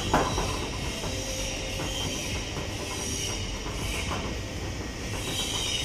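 Plastic RO filter housing being handled by hand: one sharp knock just after the start, then a few faint knocks and ticks over a steady hiss.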